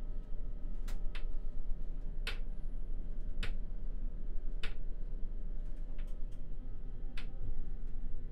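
Stockholm metro C20 train running, heard from inside its rear cab: a steady low rumble with sharp ticks about every second, six or so in all.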